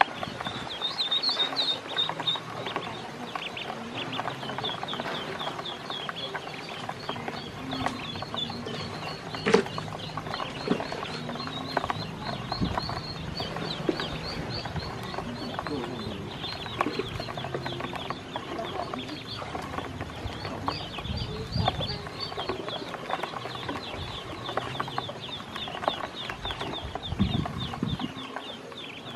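A group of black and yellow ducklings peeping without pause, a dense stream of rapid, high, short chirps, as they peck feed from a plastic basin, with scattered taps and scuffles. There is one sharp click about nine and a half seconds in.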